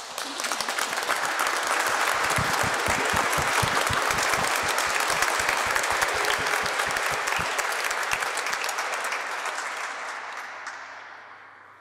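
Congregation applauding: a dense crackle of many hands clapping that builds within the first second, holds steady, then dies away over the last few seconds.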